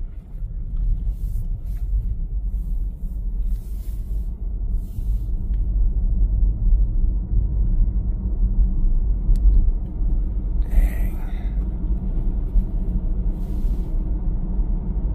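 Low road and tyre rumble inside the cabin of an electric Tesla Model S Plaid pulling away and picking up speed, growing louder as it goes. A short hiss about two-thirds of the way through.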